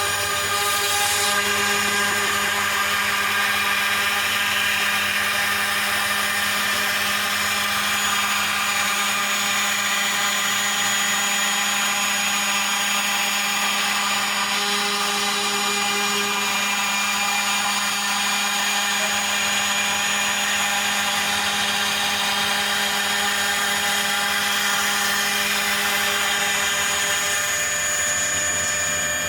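Homemade CNC router cutting foam: the spindle runs steadily with a high whine while the stepper motors drive the axes. A low humming tone comes in about a second in and drops out near the end as the motion changes.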